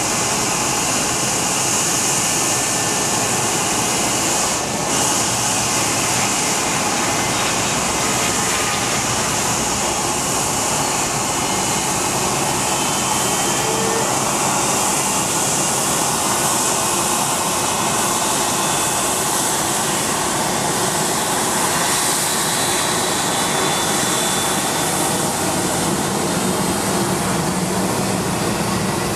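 McDonnell Douglas MD-83 jet airliner's two rear-mounted Pratt & Whitney JT8D turbofans at takeoff power as the aircraft accelerates down the runway. A loud, steady jet noise with a strong hiss, holding level throughout.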